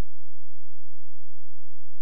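A steady, unchanging low hum: one loud tone with nothing else over it.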